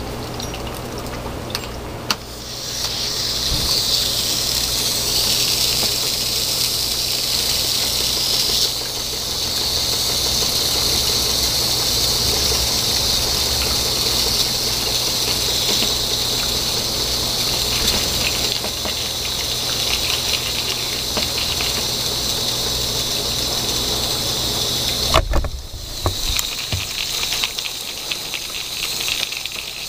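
Homemade CO2 engine running on gas from dry ice in warm water, with a steady hiss of escaping gas that starts about two seconds in after a click. Near the end there is a knock, and after it the hiss is fainter.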